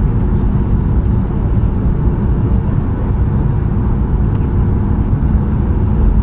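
Steady low rumble of engine and airflow noise heard inside the cabin of a Boeing 737-800, with a faint steady hum from its CFM56-7B turbofans.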